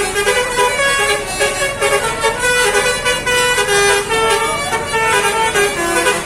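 Basuri 'telolet' multi-tone bus horn playing a melody, its notes stepping to a new pitch several times a second without a break.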